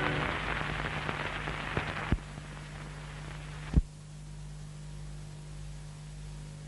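Running noise of an old film print's soundtrack with no programme on it: steady hiss and a low hum, broken by a few sharp pops, the loudest nearly four seconds in. The hiss drops a step about two seconds in.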